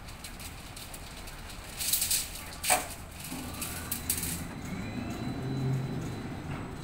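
Crane lifting a bundle of steel rebar on chain slings: metal clinking and clanking from the chains and bars, the loudest a single sharp clank just under three seconds in. From about halfway through, a rising whine with a low machine hum comes from the hoist.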